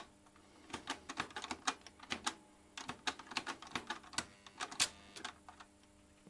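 Märklin model railcar clicking and clattering as it runs over the track, an irregular run of small sharp clicks lasting about four and a half seconds over a faint steady hum.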